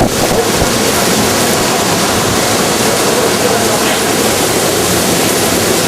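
Steady, loud rushing of Hurricane Katrina's wind and water.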